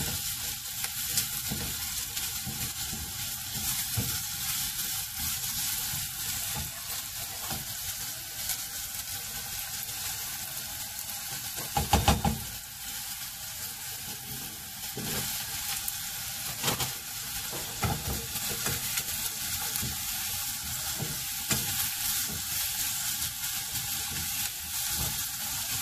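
Diced onion, celery, anchovies and garlic frying in oil in a small saucepan: a steady sizzle, with a utensil stirring and scraping in the pan. There is a louder knock about halfway through and a couple of smaller ones later.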